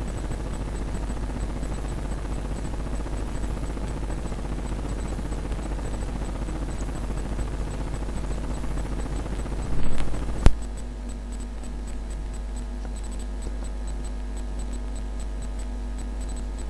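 Steady background hiss over a low electrical hum. Just under ten seconds in there is a brief louder rustle, then a single sharp click. After the click the hiss drops and a steady hum with several even tones remains.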